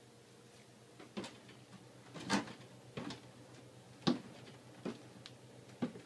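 Footsteps coming down a flight of stairs: about six separate thuds at an uneven pace, roughly one a second.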